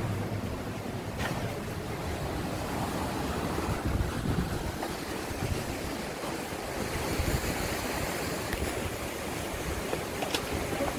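Wind buffeting the microphone over the steady wash of sea surf, with a couple of faint knocks.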